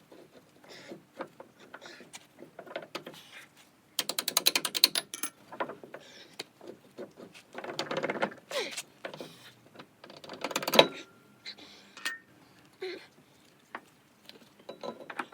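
Hand tool work on a car's hub and suspension: a quick run of ratchet wrench clicks about four seconds in, among scattered metal clanks and rattles, with one sharp metallic knock near the eleven-second mark.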